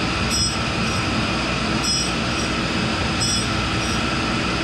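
1942 Cincinnati No. 2 tool and cutter grinder running steadily while grinding a chuck key, with a brief high-pitched squeal about every second and a half as the work passes across the wheel.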